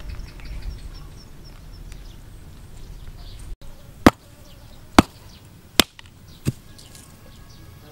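Four sharp knocks about a second apart: a hand-held perforated clay brick striking down onto rock.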